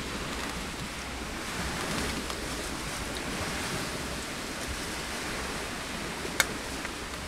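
Steady rushing of wind and lake waves, with a single sharp clink of a spoon against a bowl about six seconds in.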